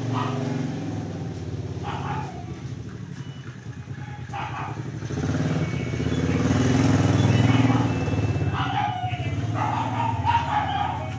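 A motor vehicle engine running nearby, growing louder to a peak about two-thirds of the way in and then easing off.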